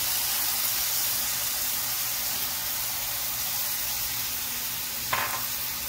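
Jaggery syrup sizzling and steaming in a hot frying pan over grated coconut, a steady hiss, with a short scrape near the end.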